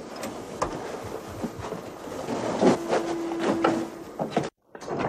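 Shuffling movement and light knocks as a wooden cabin door is opened, with a short steady squeak about three seconds in. The sound cuts off suddenly near the end.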